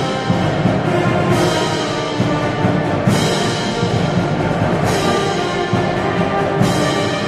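Ceremonial band music: brass and drums playing a slow piece, with a bright crash about every two seconds.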